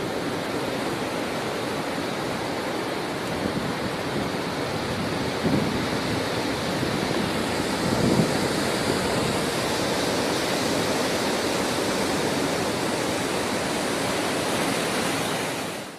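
Heavy sea surf breaking against a concrete bridge on pillars: a steady rush of churning water, with two louder wave crashes about five and a half and eight seconds in.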